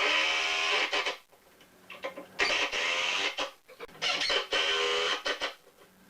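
Power drill running in repeated bursts of about a second each, stopping and starting three times, with a steady whine.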